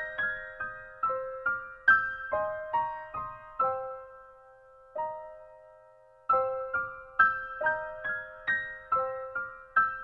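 Soft background piano music: a slow melody of single notes, each ringing out and fading. It thins to one lone note and a short pause in the middle, then carries on.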